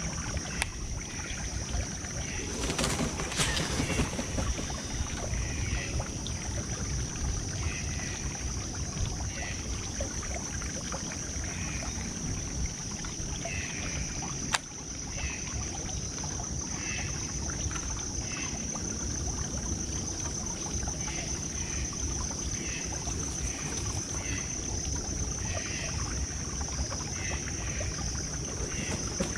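Outdoor ambience: wind rumbling on the microphone under a steady high-pitched buzz, with short chirps repeating every second or two. One sharp click about halfway through.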